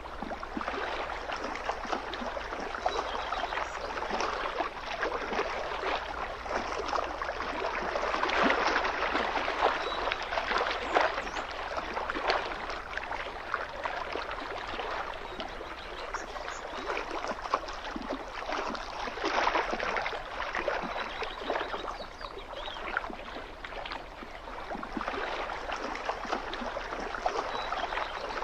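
Small waves lapping and splashing along a lake shoreline: a steady watery wash full of fine crackles that swells and eases irregularly.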